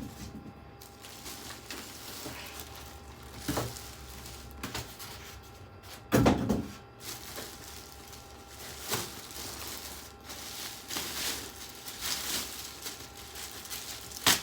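Scattered handling noises: short knocks, clunks and rustles as boxes and packaging of computer parts are moved and opened, the loudest a heavier clunk about six seconds in.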